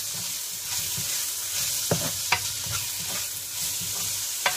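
Chopped bacon and ham sizzling in oil in a nonstick frying pan while they are stirred with a spatula, with a few sharp taps of the spatula against the pan.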